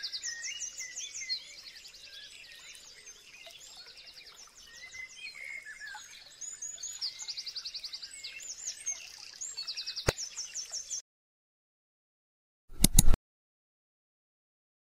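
Songbirds chirping and trilling, several birds overlapping in quick repeated notes, with one sharp click about ten seconds in; the birdsong cuts off suddenly about eleven seconds in. After a short dead silence, a brief loud sound effect comes about thirteen seconds in.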